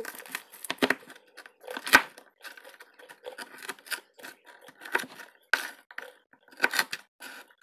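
Chef's knife chopping crispy, meaty chicharrón (fried pork) on a wooden cutting board: irregular crunching cuts, each ending in a knock of the blade on the board, about one or two a second.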